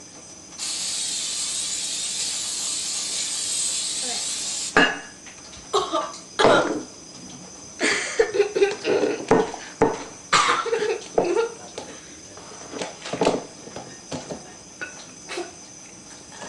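Aerosol cooking spray hissing steadily for about four seconds as it greases a baking pan, then scattered clicks and knocks.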